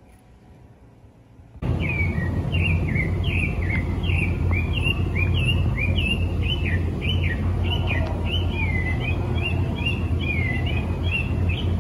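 Starting about one and a half seconds in, a bird sings a long run of short, hooked whistled notes, a little over two a second, over a steady low rumble.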